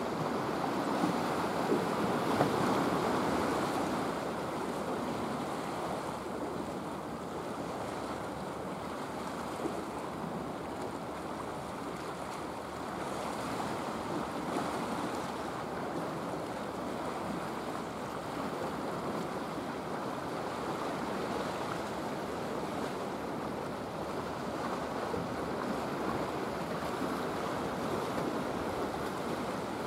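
Small waves washing against a pebble shore and concrete breakwater: a steady rushing, slightly louder in the first few seconds, with some wind.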